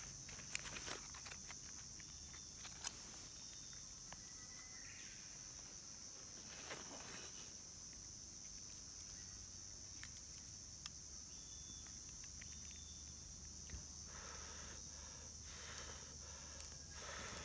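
A steady, high-pitched chorus of insects such as crickets, with scattered small clicks and snaps, one sharper snap about three seconds in.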